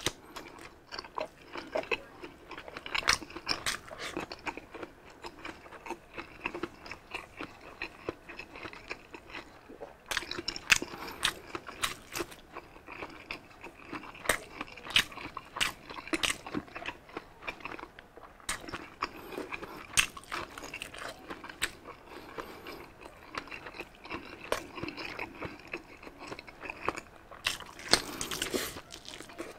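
A person biting into and chewing grilled sausage, with many irregular sharp mouth clicks throughout.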